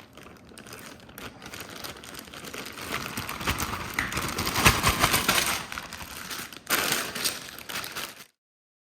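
Plastic packaging crinkling and rustling as a building-block set is opened and handled, loudest around the middle, stopping abruptly near the end.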